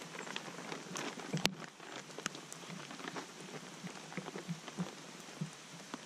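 Rain pattering as a steady hiss with many irregular drop ticks, together with the rustle and crackle of a black plastic tarp being unfolded and shaken out. A sharper crack about one and a half seconds in.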